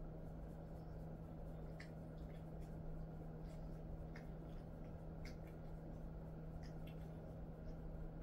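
Faint rubbing of hands massaging a dog's ears and fur, with a handful of soft clicks, over a steady low hum.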